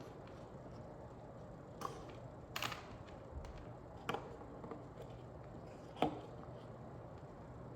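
A few sharp clicks and taps, handling noise of a charging cable being unwound and handled, with the loudest knock about six seconds in.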